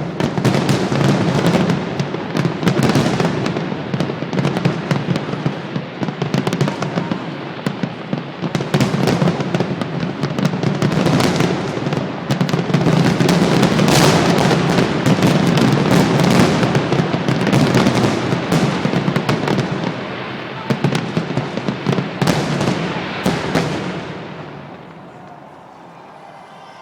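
Fireworks display: a dense, rapid run of bangs and crackling bursts going off almost without pause, dying away near the end.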